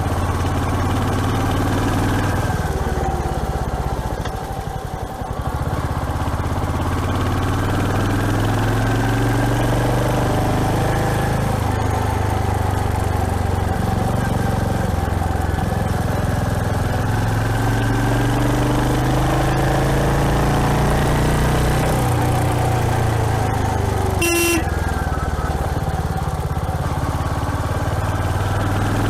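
Royal Enfield Hunter 350's single-cylinder engine on the move, its pitch rising as it pulls through the gears and falling as it eases off, with a dip about four seconds in when the throttle is closed. A brief sharp beep comes near the end.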